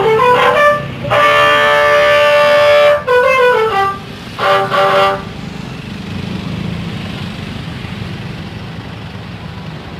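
Bus 'telolet' musical air horn playing a short tune of stepped notes, with one held chord in the middle. The horn stops about five seconds in, leaving a steady low rumble of vehicle and road noise.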